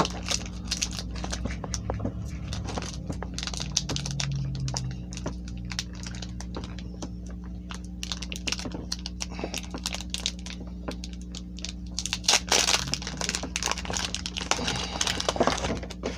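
Foil wrapper of a Pokémon booster pack crinkling and tearing as it is handled and ripped open, with many small crackles and a louder stretch of crinkling about twelve seconds in and again near the end.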